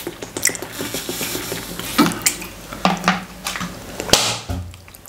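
Scattered light clicks and knocks of things being handled at a table with dishes on it, with a couple of short low hums of a voice.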